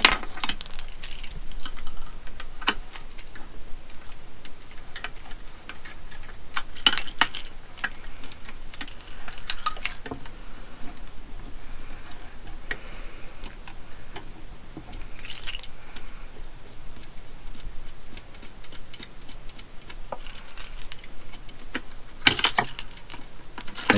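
Light metallic clinking and jingling of a small hand tool on a dangling ring against a brass lamp and its gimbal ring as the ring's screws are tightened by hand. Scattered clicks, with short bunches of sharper clinks every several seconds.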